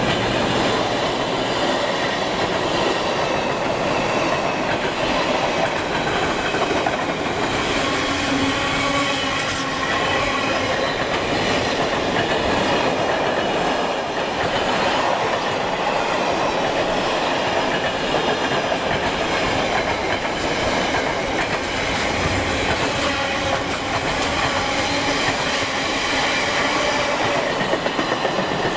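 Container flat wagons of a long intermodal freight train passing close by at speed: a steady rumble of steel wheels on the rails.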